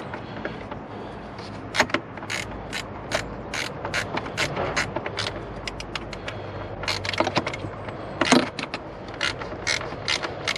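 Hand ratchet clicking in short runs as it tightens the single screw that holds the radiator fan in place, with one louder knock about eight seconds in.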